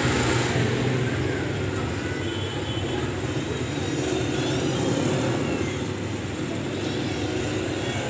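Homemade razor-blade immersion heater fizzing and bubbling steadily in a bucket of water as mains current passes through it.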